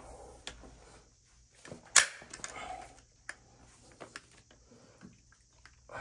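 Scattered clicks and knocks of a ProPress pipe press tool being handled and its jaw set onto a copper pipe fitting, with one sharp, loud click about two seconds in. The tool's motor does not run.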